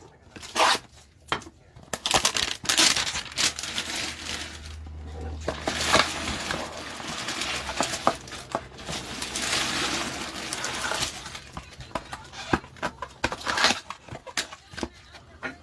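Cardboard trading-card hanger box being cut and torn open by hand, with rustling and crinkling of the packaging as the cards are pulled out, and scattered small clicks and taps.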